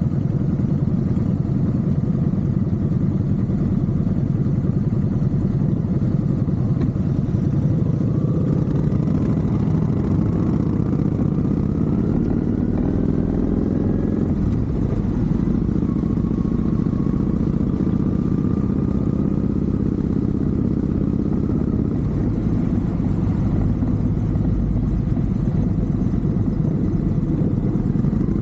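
Motorcycle with an aftermarket Vance & Hines exhaust running while riding, its engine pitch rising slowly twice as it pulls through the revs.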